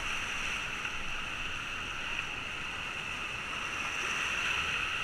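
Steady rush of whitewater rapids around an inflatable raft, an even hiss with no breaks.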